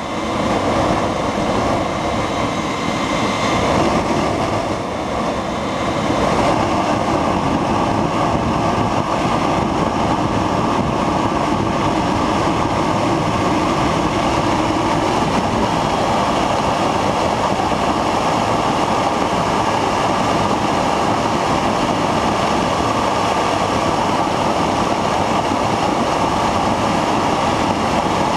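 Homemade electric jet engine running steadily and loudly: a brushless electric motor spins a centrifugal compressor, and kerosene burns in the combustion chamber. The sound dips briefly about five seconds in, then holds steady at a slightly higher level.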